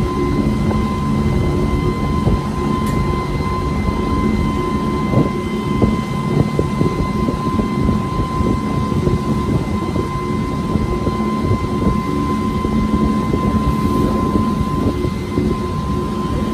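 Passenger boat's engine running steadily under way: a low drone with a constant high whine above it, over wind and water rushing past the hull.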